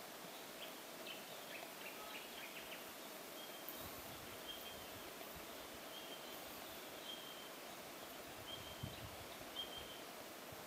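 Quiet bush ambience with a bird calling, its short high notes repeated about once a second. A couple of soft thumps come near the end.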